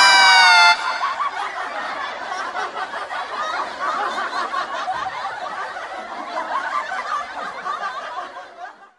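A loud pitched sound effect rings out and stops under a second in. It is followed by a dense, lively stretch of many people giggling and snickering: a canned laughter effect that fades out just before the end.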